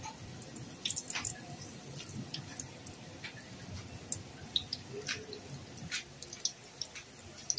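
Binangkal dough balls deep-frying in hot oil: a steady sizzle with irregular small pops and crackles.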